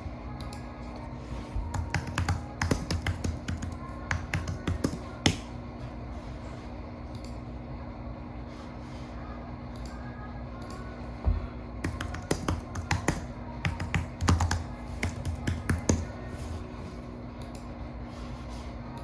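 Typing on a computer keyboard: two spells of quick key clicks, the second starting about twelve seconds in, over quiet background music.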